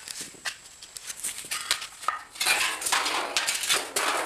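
Metal tools and parts being handled, clinking and clattering in a scatter of sharp clicks that gets busier about two and a half seconds in.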